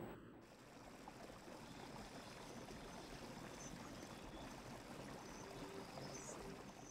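Faint, steady rush of running water from a waterfall.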